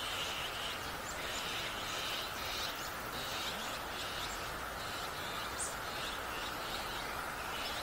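Wild birds chirping in short, repeated high calls over a steady outdoor background hiss.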